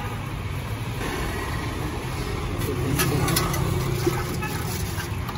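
Steady low rumble of passing street traffic, with a few light clicks about three to four seconds in.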